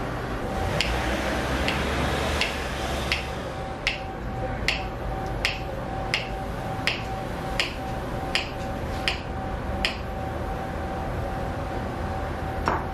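Kitchen knife slicing a banana into rounds on a wooden cutting board: about a dozen even taps of the blade on the board, one every three-quarters of a second, then one more near the end, over a steady background hum.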